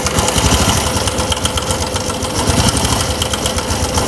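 Honda Supra X 125 fuel-injected single-cylinder four-stroke engine running steadily with a rough, fast mechanical clatter like a sewing machine. The mechanic estimates the cause to be the cam chain or the rocker arms.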